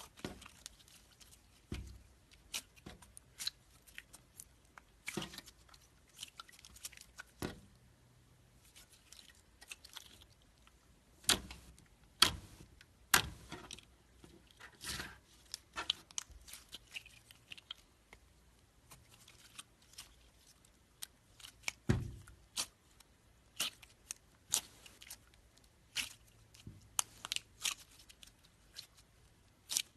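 Slime being squeezed, pressed and poked by hand, giving irregular crackling pops and squishes, with the sharpest pops about halfway through.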